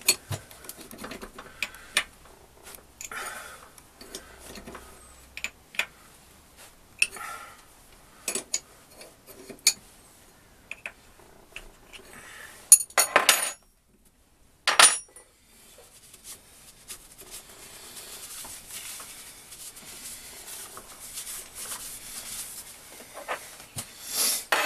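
Steel chuck key working the jaw screws of a four-jaw lathe chuck: a string of sharp metallic clicks and clinks with short pauses between them. Later comes a faint steady rubbing, ending in a loud metallic clank.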